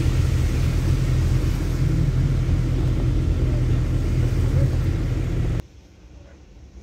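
Car cabin noise while driving on a wet road: a steady low engine and road rumble with tyre hiss. About five and a half seconds in it cuts off abruptly to a much quieter faint hum.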